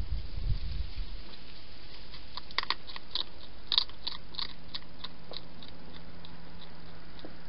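Wild European hedgehog eating from a dish: a run of sharp chewing clicks, about three or four a second, that fades away, after a few low thuds in the first second.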